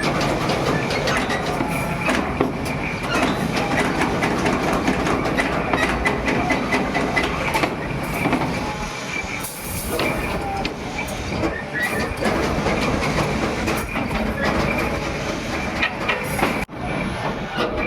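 Workshop machinery running with a continuous metallic clatter and rattle, full of small clicks. There is a brief break about three-quarters of the way through.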